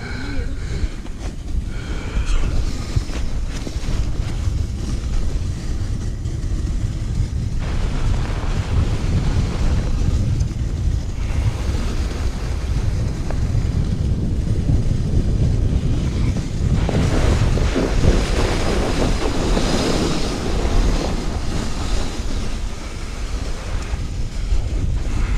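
Wind buffeting the microphone of a helmet camera, with the hiss and scrape of sled runners over packed snow during a fast toboggan run. The scraping hiss gets louder about eight seconds in and again around seventeen seconds in.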